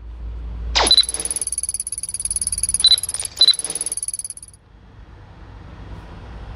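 Electronic sound design from the opening of a tech-themed video ad. A fast falling whoosh is followed by a high, rapidly pulsing synthetic tone with two short beeps. The tone cuts off and gives way to a low rumble that slowly swells.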